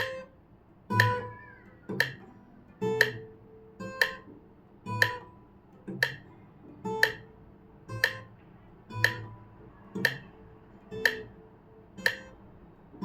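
Guitar playing a slow left-hand finger exercise, one plucked note on each beat, in time with a metronome clicking once a second (60 BPM).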